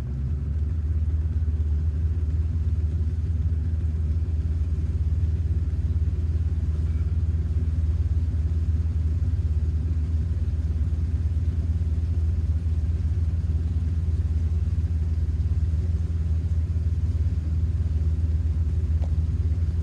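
Motorboat engine running steadily, a constant low hum.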